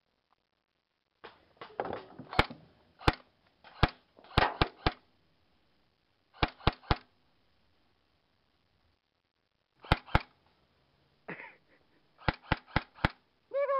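M4-style airsoft rifle firing single shots close up, each a sharp crack, in groups: several in the first few seconds, three in quick succession, a pair, then five rapid shots at about four a second near the end.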